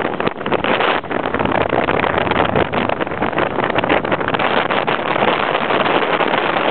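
Strong wind buffeting the camera microphone over the steady rush of whitewater rapids: a loud, dense roar that flickers and gusts unevenly.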